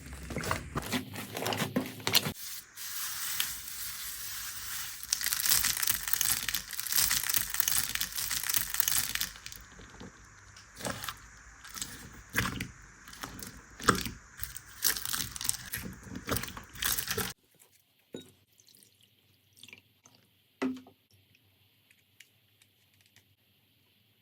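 Slime being pressed, stretched and squished: dense crackling and crunching with sharp sticky pops and clicks. The sound changes character a few times, and in the last several seconds it turns much quieter, with only scattered soft clicks.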